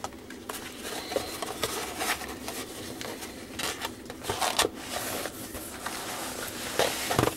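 Clear plastic bag around a diamond painting canvas crinkling and rustling as it is handled, in a string of short crackles, with a soft thump near the end.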